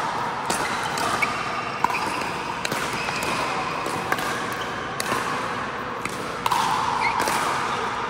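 Pickleball paddles striking the plastic ball in a rally: a string of sharp pops roughly a second apart over steady background noise.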